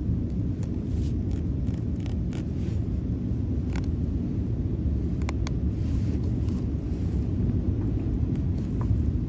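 Steady low outdoor rumble, with faint scattered ticks and scrapes of a fillet knife cutting along a fish on a plastic cutting board.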